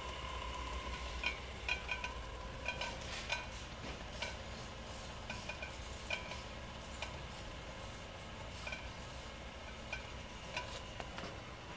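Abacus belt conveyor running, its drive motor giving a steady low hum and a faint whine that fades over the first few seconds, with irregular light ticks and clicks.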